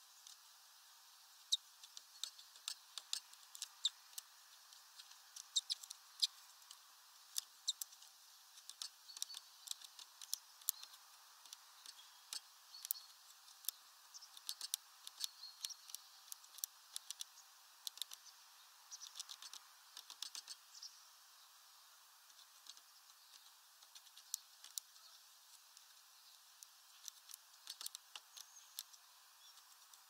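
A tit pecking at a suet cylinder in a wire spiral feeder: irregular sharp taps and clicks in quick runs, with a quieter spell past the middle.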